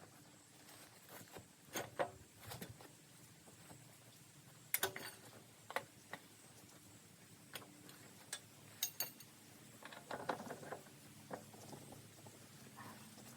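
Scattered clicks, clinks and knocks of metal parts and tools being handled while a part is worked into place on a backhoe, over a faint steady hum.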